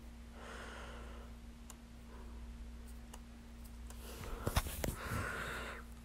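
Faint room tone with a steady low hum. A short soft rush of noise about half a second in; a quick cluster of sharp clicks about four and a half seconds in, followed by another soft rush of noise.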